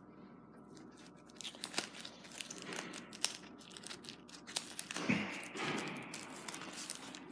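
Clear plastic sleeves and paper prints crinkling and rustling as they are handled and shifted on a table: irregular crackles throughout, with a louder stretch of crinkling about five seconds in.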